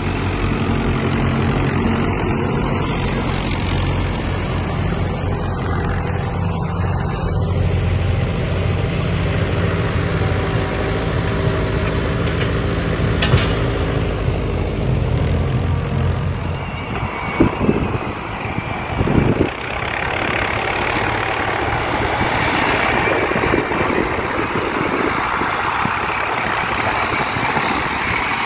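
Tractor engine running steadily as it works the field. About two-thirds of the way through, the even engine sound gives way to a rougher, noisier run with a few short knocks.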